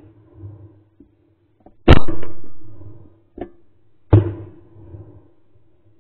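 Shotgun shots during a duck hunt: a very loud shot about two seconds in with a long rolling echo, a fainter report around three and a half seconds, and another loud shot just after four seconds, also echoing.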